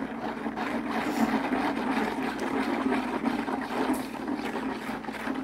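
Plastic spoon stirring powdered laundry detergent into hot water in a plastic basin: a steady swishing with a fine gritty scraping at the bottom of the basin, the sign that the powder is not yet fully dissolved.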